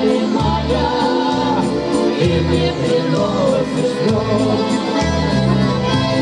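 Music with a steady beat and a repeating bass line under a melody.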